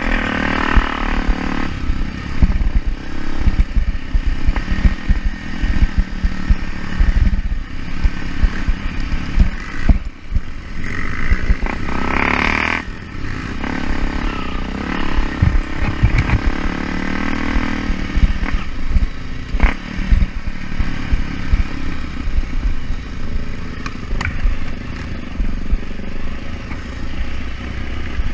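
Off-road motorcycle engine running and revving up several times on a muddy trail, with frequent low knocks and clatter from the bike over rough ground.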